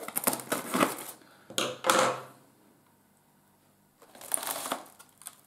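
Polystyrene foam shipping box being opened by hand: a series of scrapes, clicks and crunches of the foam lid and its packing tape, a louder scrape just under two seconds in, a pause of about two seconds, then another short scrape with a high foam squeak.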